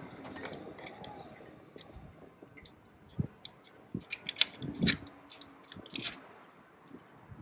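Scattered small clicks and metallic taps as a stainless antenna mounting bracket and its fittings are handled and tightened on a rail, with a louder cluster of clicks about four to five seconds in.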